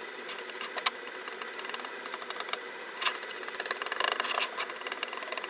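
Paintbrush scrubbing and dabbing acrylic paint over masking tape on a wooden panel: a dry, scratchy brushing with many small ticks, busiest about three to four and a half seconds in.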